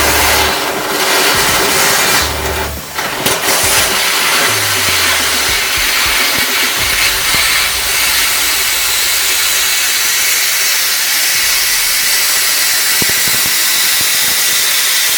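High-power laser cutting machine running, with a steady hiss of cutting and assist gas. It settles into the even hiss about four seconds in, after some uneven rumble and a few sharp knocks.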